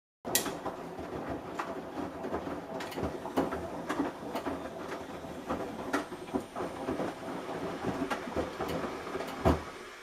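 Samsung Eco Bubble front-loading washing machine on a wash cycle, its drum tumbling a soaked teddy bear and laundry. The load makes irregular knocks and thuds as it falls, with one louder thump near the end.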